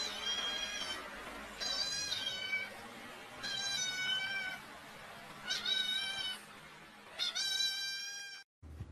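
Domestic cat meowing repeatedly: about five long, high-pitched meows, each falling slightly in pitch, spaced roughly two seconds apart, cut off abruptly near the end.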